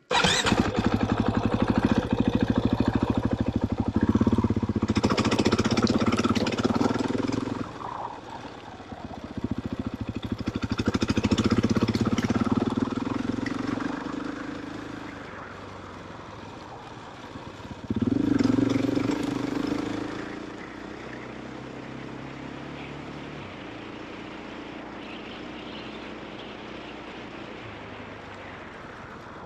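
KTM off-road motorcycle engine on the throttle, revving up and easing off in several surges, then running at low, steady revs for the last several seconds.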